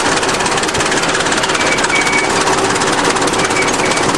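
A 20-ton crawler bulldozer's diesel engine running while the machine moves along, with a fast, steady mechanical clatter and a few short high squeaks.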